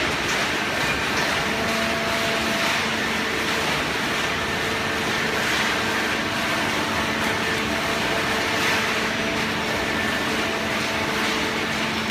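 Hydraulic baling press running: a steady hum from its motor and hydraulic pump over a continuous mechanical noise.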